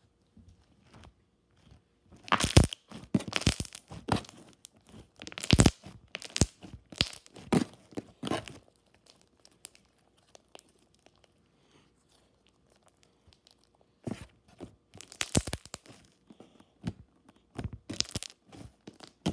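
A stiff slime being squished and stretched by hand, making sticky crackles, pops and tearing sounds. The sound comes in two spells with a quiet pause of a few seconds between them.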